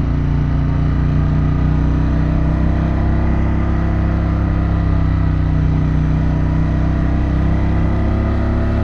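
A 2024 Harley-Davidson Pan America's liquid-cooled 1250 V-twin running on the move at a near-constant engine speed, its note easing down only slightly over these seconds.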